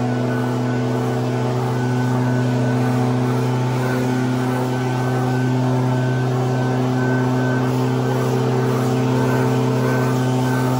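Echo two-stroke backpack leaf blower running at a steady speed, blowing dry leaves across grass.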